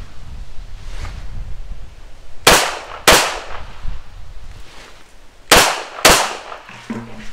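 Two controlled pairs of pistol shots from a Rival Dark Side handgun: two quick shots about half a second apart, then a second pair about three seconds later, each crack trailing off in a short echo. A faint low hum begins near the end.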